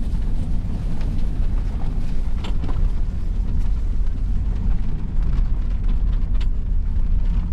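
A vehicle moving: a steady low rumble of engine and road noise, with a few light clicks and rattles.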